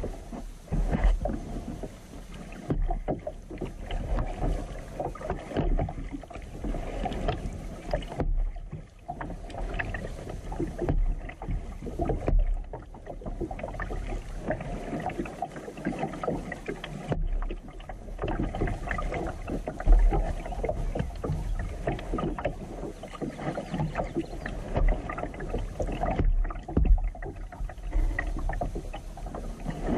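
Kayak paddle dipping and splashing in calm water, irregular and continuous, with occasional low bumps.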